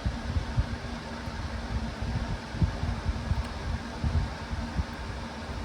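Steady mechanical hum with a fluctuating low rumble underneath, like a running fan.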